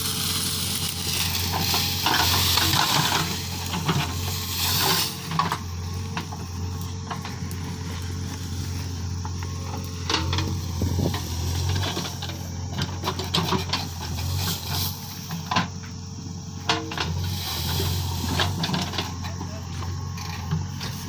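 JCB 3DX backhoe loader's diesel engine running with a steady low drone, with gritty scraping and scattered knocks from the bucket working soil; the scraping is strongest in the first five seconds.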